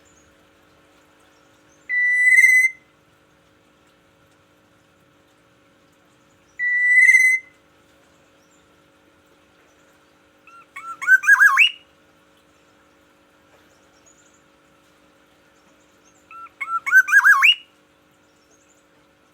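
Black-naped oriole calling: two long steady notes a few seconds apart, then two quick warbling phrases of rising whistles.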